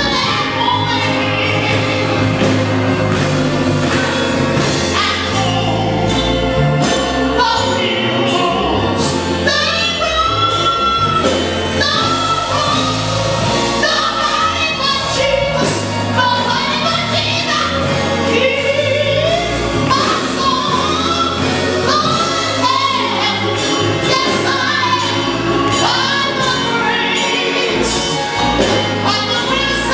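Live gospel choir singing, with a woman leading on a microphone, over sustained low accompaniment.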